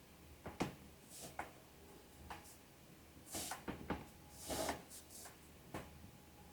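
Handling noise: scattered sharp clicks and several short rustles, the loudest rustles around the middle.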